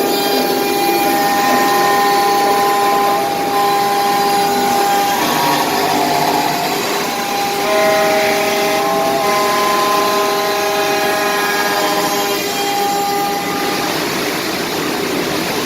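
4-axis CNC router spindle running and cutting wood: a loud, steady whine made of several held tones over a rough cutting noise. The tones waver and shift in pitch around the middle as the cut changes.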